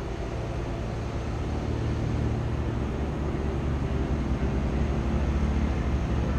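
Low, steady rumble of a car creeping forward at low speed, with a faint engine-like hum, growing gradually louder.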